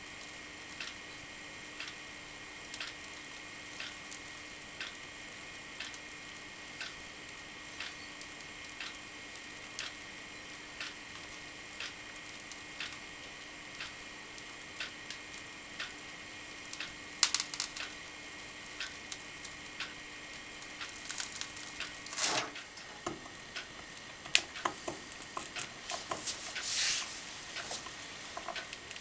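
Home-made hot-wire foam cutter working through a styrofoam block: a steady hum with a light tick about once a second. About 22 seconds in there is a louder knock, the hum stops, and irregular clicks and crackling follow.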